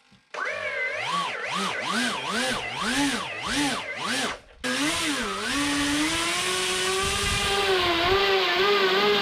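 Small brushless outboard motor (Sunnysky X2216, 1300 kV) spinning an 8x4.5 plastic propeller on a bench test. The throttle is blipped up and down about seven times, cuts briefly, then is held at a steady speed with a slight wavering in pitch.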